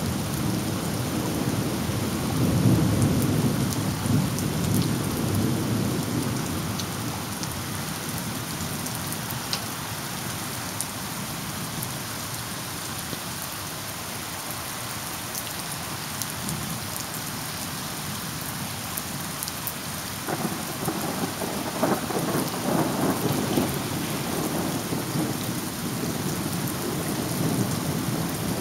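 Thunderstorm: steady heavy rain, with rolling thunder rumbling low. The thunder swells a couple of seconds in, eases, and builds again about two-thirds of the way through.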